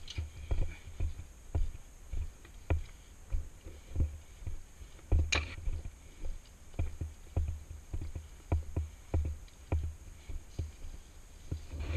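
Footsteps of a person walking on a concrete path at a steady pace, about two steps a second, each step a dull thud. A sharper scrape or rustle comes about five seconds in.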